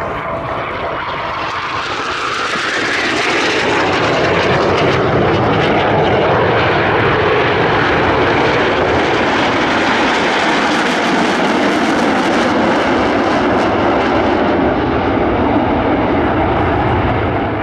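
Fixed-wing aircraft engine noise as an aircraft flies past. It builds over the first few seconds, holds loud and steady, and its hiss thins out near the end.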